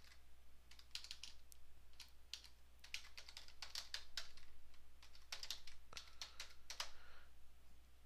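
Computer keyboard typing: several short runs of keystrokes with pauses between them.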